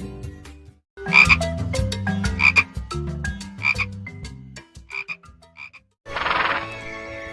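Frog croaking, a repeated call about every second and a quarter, four or five times. A different, noisier sound starts near the end.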